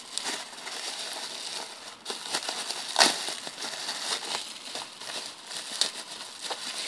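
Bubble wrap packing being pulled off and crumpled by hand: a continuous plastic crinkling and rustling with sharp crackles, the loudest about three seconds in.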